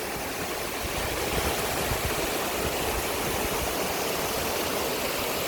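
Rushing river water: a steady, even rush with no breaks.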